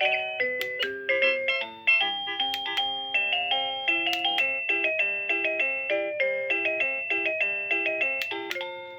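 AVANTEK wireless doorbell receiver playing one of its selectable ringtones: a fast electronic chime melody of many short notes, each struck and dying away.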